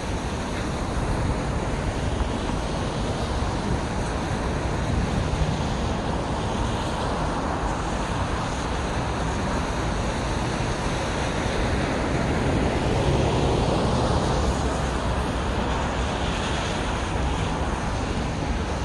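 Steady city traffic noise, a continuous wash of passing cars, swelling a little about two-thirds of the way through.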